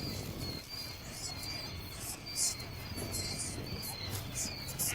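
Insects chirping in short, very high-pitched pulses that repeat irregularly about once or twice a second.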